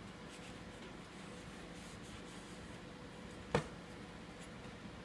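Soft scratchy rubbing of a cloth wiped over the metal outer barrel of an airsoft pistol, with one sharp click about three and a half seconds in.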